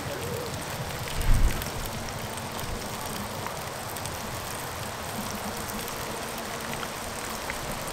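Sausages sizzling steadily in the frying pan of a Trangia Mini camp stove, with one low thump about a second in.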